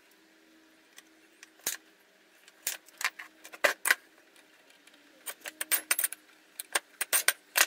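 Irregular sharp clinks and clatters of small metal parts and tools being handled and set down on a workbench, in two busier runs with short pauses between.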